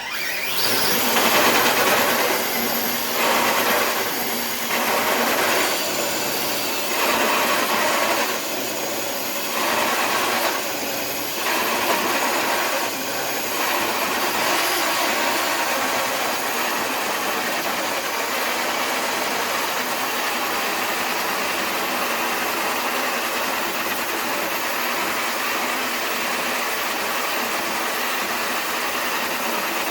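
Traxxas TRX-4 High Trail RC crawler's electric motor and geartrain whining under heavy load as it slowly drags a weighted sled across concrete. It surges repeatedly, about every second or two, at first, then runs steadily.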